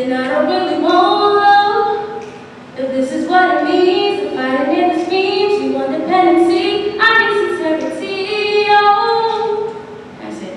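A solo voice singing unaccompanied into a microphone, holding and sliding between long notes, with a short break about two and a half seconds in and the last phrase fading near the end.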